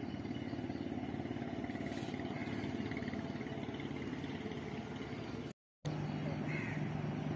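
Steady engine or motor noise, cut by a brief dead silence about five and a half seconds in.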